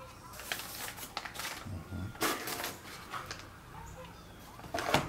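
Paper envelopes rustling and sliding against each other and the sides of a cardboard box as they are handled, in a string of short scrapes and crinkles, with a sharper knock near the end.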